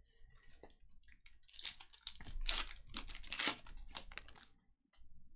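Crinkling and rustling of trading-card packaging and cards being handled, in a dense cluster of crackles that is loudest between about one and a half and four and a half seconds in.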